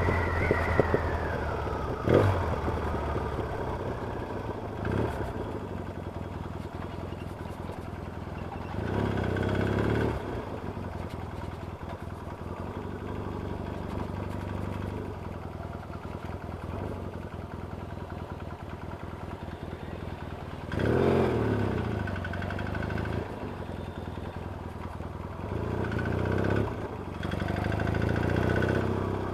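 Yamaha XS650 chopper's air-cooled parallel-twin engine running on the road. It falls away in pitch at first, then opens up in louder surges about nine seconds in, past twenty seconds, and again near the end. The engine has a tapping noise that the owner puts down to worn rockers, rocker shafts or tappets.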